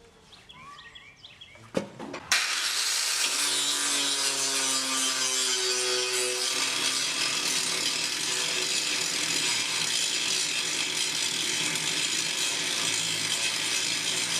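Power tool with a cutting blade cutting through steel, starting suddenly about two seconds in and then running steadily with a loud, even hiss.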